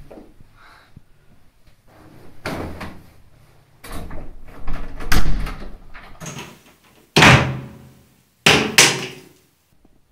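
A wooden door being handled and banged shut: a few softer knocks and scrapes first, then one loud bang about seven seconds in and two more in quick succession about a second later, each ringing briefly in the room.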